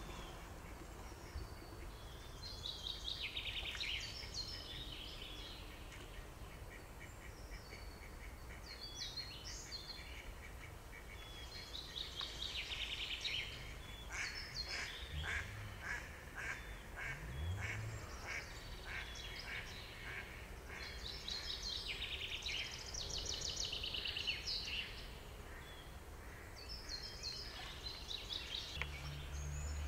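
Small songbirds singing short phrases every few seconds. A mallard gives a run of harsh quacks through the middle.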